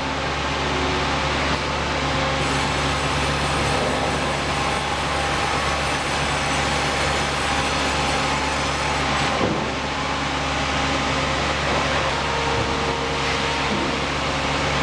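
Sawmill machinery running steadily: a dense mechanical din with several steady hums and whines. There is one short knock about nine and a half seconds in.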